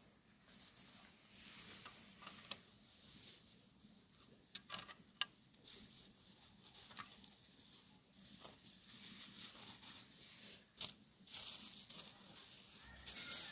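Dry grain pattering and hissing as it is poured from a plastic bag onto a heap on a plastic sheet, with the bag crinkling. It comes and goes in several bursts of hiss and small clicks.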